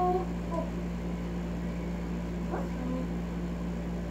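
A steady low hum, with a short high-pitched, voice-like tone right at the start and a few faint small noises later.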